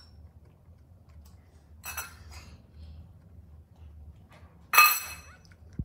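Metal cutlery clinking against a ceramic plate, twice: a light clink about two seconds in and a louder, ringing clink near the end.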